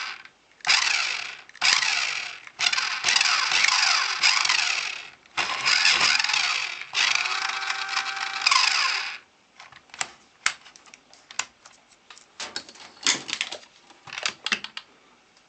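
Radio-controlled toy car's small electric drive motor and plastic gearbox whirring in a series of bursts of one to two seconds, as the throttle is pressed and released. The bursts stop about nine seconds in, followed by scattered light plastic clicks and taps.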